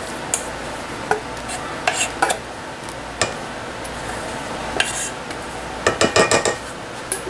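A utensil scraping and stirring in a mixing bowl as beaten egg whites are added and folded into cake batter, with scattered light clinks against the bowl and a quick run of several taps about six seconds in.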